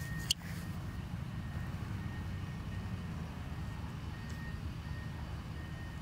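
Steady low outdoor rumble, with a faint high-pitched beep repeating in short, evenly spaced pulses and a single sharp click just after the start.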